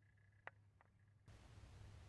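Near silence: a faint steady high tone and a few faint clicks, then the faint background hiss steps up slightly about a second and a half in.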